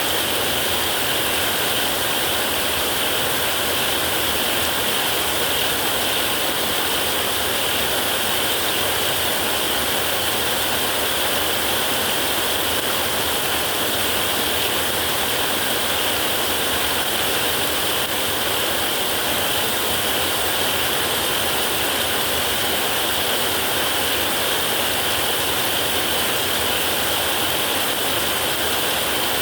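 Heavy rain drumming steadily on a metal roof: a dense, even hiss of drops, with no thunder.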